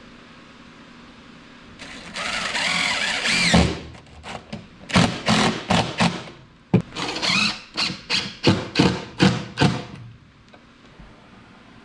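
Cordless drill/driver driving screws into wood: a run of about two seconds, then about a dozen short, sharp bursts over the next six seconds as the screws are set.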